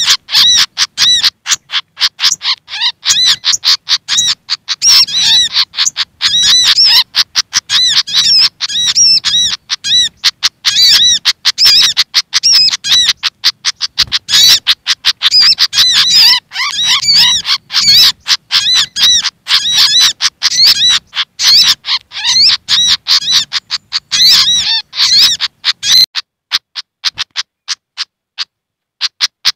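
Agitated ('ribut') calls of a Malaysian pied fantail mixed with a sogok ontong sunbird's calls, as used for a bird lure: a fast, dense run of sharp high chips and short swooping notes. The calls thin out near the end, with a brief pause.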